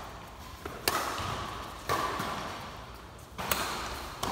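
Badminton rackets smacking a shuttlecock in a fast doubles rally. There are four sharp hits roughly a second apart, each ringing on in a large hall.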